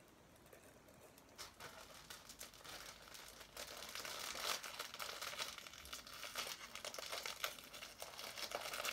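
Parcel packaging crinkling and tearing as it is unwrapped by hand. It starts about a second and a half in and gets louder and busier after about three and a half seconds.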